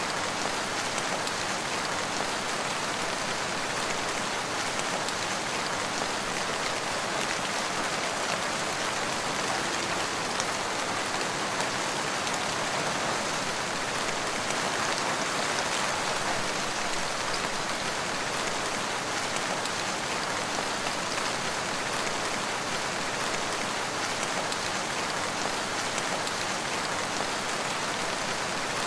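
Steady rain falling on surfaces: an even, unbroken patter of drops that keeps the same level throughout.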